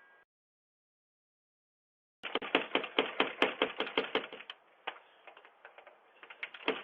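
About two seconds of silence, then a rapid run of knocks on a door, roughly eight a second, that slows to scattered knocks and then quickens again near the end. The sound is thin, with nothing above about 4 kHz.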